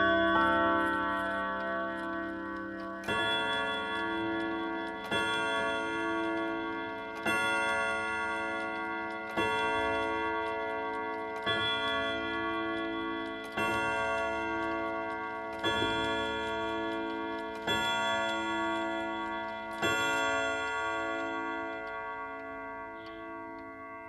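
Chiming clock ending its melody, then striking the hour on its gong: nine strikes about two seconds apart, each ringing on and slowly dying away, with the clock ticking underneath.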